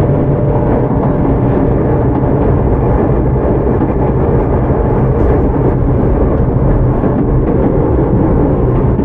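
Steady running noise of a Tokyu 9000 series electric commuter train heard from inside the car: a loud, even rumble of wheels on rail and running gear at a steady speed.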